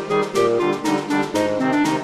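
Background music with a steady beat and a melody of short, changing notes.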